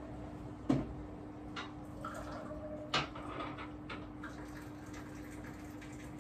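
Dishes and glassware being handled and set down: two sharp knocks, about a second in and about three seconds in, with lighter clicks between them, over a steady hum.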